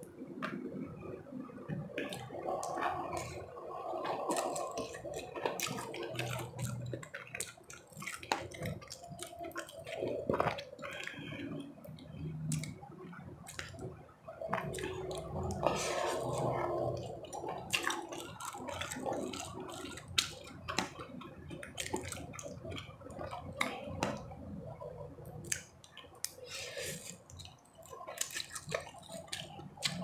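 Close-miked eating of ramen noodles: wet chewing and mouth smacking, with many small sharp clicks.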